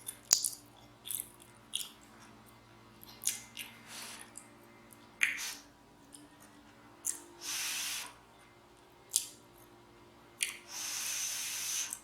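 Close-miked chewing of macaroni and cheese: a string of short, wet clicks and smacks, with two longer hissy sounds, one a little past the middle and one near the end.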